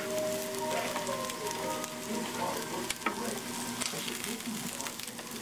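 Food sizzling as it fries in a pan, a steady crackling hiss with scattered pops.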